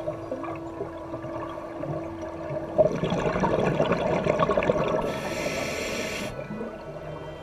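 Scuba breathing through a regulator underwater: a rush of exhaled bubbles starts about three seconds in, then a short high hiss of inhalation.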